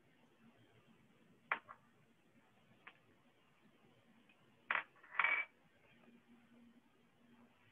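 A few light, sharp taps and clicks of a stylus on a tablet screen during handwriting: a quick double tap about a second and a half in, a single tap near three seconds, and a louder, slightly longer pair just past the middle.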